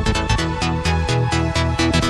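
Background electronic dance music with a steady, driving beat.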